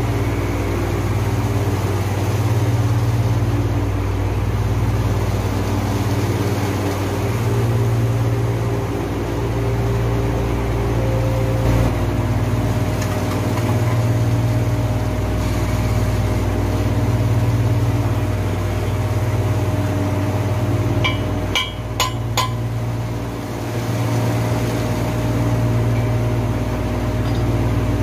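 Steady low machinery hum from a chiller plant running, swelling and fading about every two seconds. A few light metallic clinks come about three quarters of the way through.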